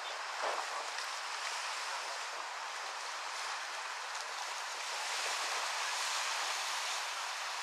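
Waves washing onto the shore: a steady rushing hiss without lulls.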